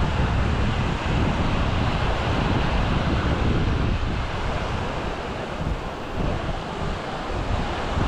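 Wind buffeting the microphone with a low, uneven rumble over the steady wash of small waves breaking on a sandy beach. The wind eases a little about halfway through.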